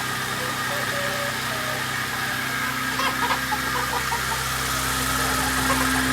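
Steady motor hum, with a run of short, high chirping calls starting about halfway through.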